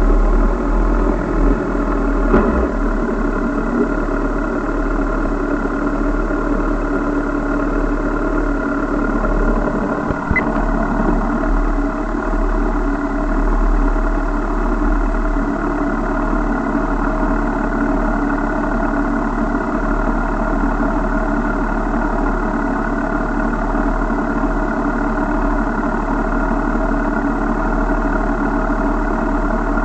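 Vehicle engine idling steadily, with a couple of brief clicks in the first ten seconds.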